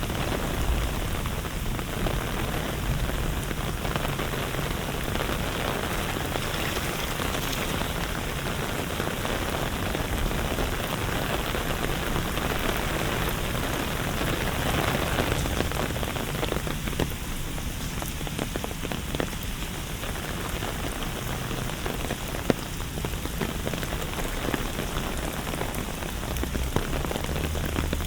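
Steady rain falling on hard surfaces: an even hiss made of many small drop ticks.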